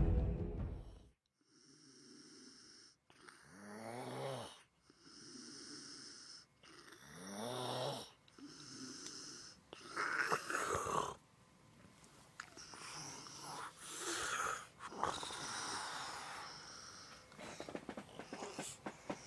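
A man snoring in his sleep: a string of rough, noisy snoring breaths about every one to two seconds, two of them with a pitched rattle that rises in pitch. Music fades out in the first second.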